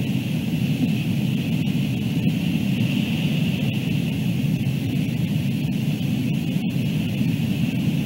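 Steady wind noise on the nest camera's microphone: an even low rumble with a constant hiss above it.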